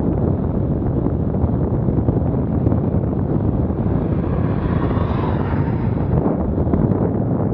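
Heavy wind buffeting on the microphone. Around the middle a vehicle passes, its rushing noise swelling and fading over about three seconds.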